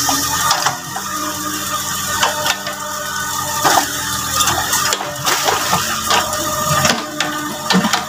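Background music over a Yanmar mini excavator working, its engine and hydraulics running while the bucket scoops mud and waterlogged vegetation.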